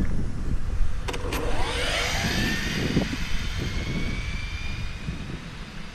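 Electric motor of an OFNA DM-1 RC car on 6S power whining as the car launches about a second in. The whine rises in pitch as the car accelerates, then fades as it speeds away.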